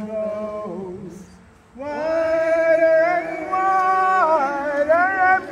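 Voices singing long held notes without words, the pitch stepping and sliding slowly between notes. A short lull comes about a second and a half in before the singing swells fuller.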